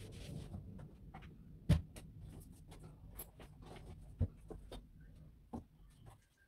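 Scattered knocks and clicks of small household objects being handled and set down during tidying. The loudest knocks come about a second and a half in and again around four seconds.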